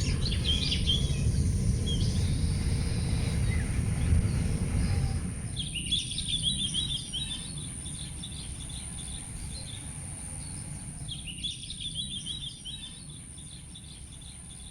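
Small birds chirping and twittering outdoors, with two busier bursts of twittering about six and eleven seconds in, over a low rumbling background noise that is loudest in the first five seconds. A steady high-pitched whine runs underneath throughout.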